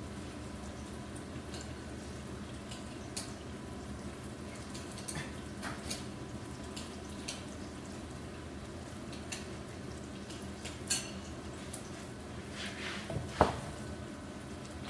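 Batter being mixed by hand in a bowl: scattered light taps and clicks, with one louder knock about thirteen seconds in, over a steady low hum.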